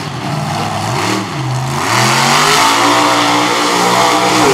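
Monster truck engine revving: a short rev that rises and drops about a second in, then climbs again and is held high and louder from about two seconds in.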